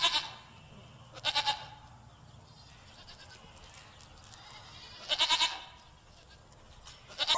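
Goat kids bleating: three short, wavering calls, at the start, about a second in and again about five seconds in.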